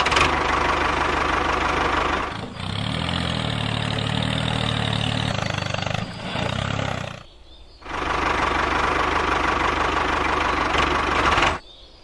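Tractor engine sound effect: an engine starting up and running, a loud clatter with a low engine drone in its middle stretch. It cuts out briefly about seven seconds in, then runs again and stops just before the end.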